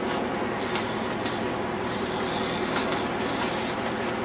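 Boat engine running steadily, a low hum, with a rasping hiss over it in two stretches, about half a second in and again from about two seconds to nearly four.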